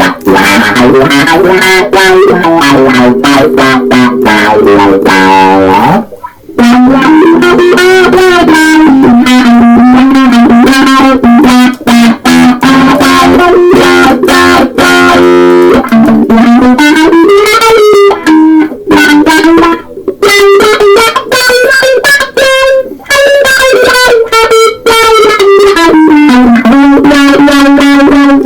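Loud electric guitar played through a wah pedal: long, bending lead notes with a sweeping, wavering tone, broken by a brief pause about six seconds in.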